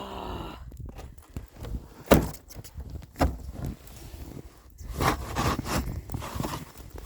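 Snow shovel scraping and knocking through heavy snow, with crunching footsteps; a sharp knock about two seconds in is the loudest, and the scrapes come thicker near the end.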